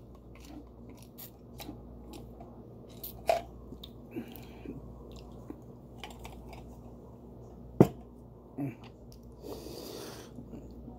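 Small mouth sounds of sipping carbonated lemon water through a metal straw, then swallowing and lip smacking, with scattered soft clicks. A sharp click comes about eight seconds in, and a short breathy hiss near the end.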